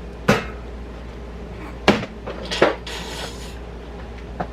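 Hard plastic door-handle parts and a metal pick clicking and knocking as they are handled: three sharp knocks, the first about a third of a second in and two more close together around two seconds in, then a brief scrape and a faint tick near the end.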